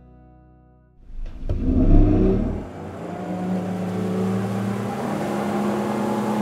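A 300 hp Yamaha outboard runs at speed on a boat planing across open water, with rushing water and spray. The sound comes in suddenly about a second in, is loudest near two seconds, then holds as a steady engine drone.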